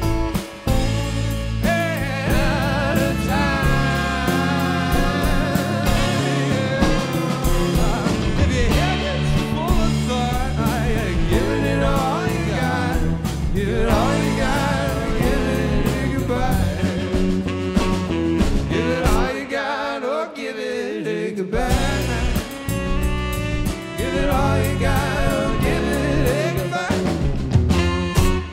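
Funk jam band playing live, with drum kit, bass, electric guitar and saxophone under a singing voice. The bass and drums drop out for about two seconds a little past the middle, then come back in.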